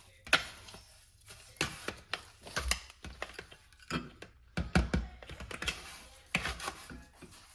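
Irregular clicks, taps and short scrapes of grouting a glass tile backsplash: a tool pressing and working grout across the tiles.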